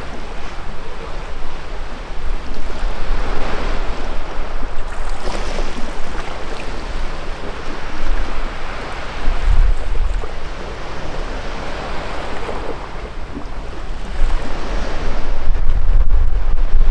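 Sea waves washing against shore rocks, rising and falling in slow surges, with wind buffeting the microphone.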